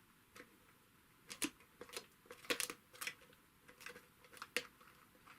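Faint, irregular clicks and light metallic taps, about ten over a few seconds, from hands and tools working on an industrial sewing machine while it is being oiled.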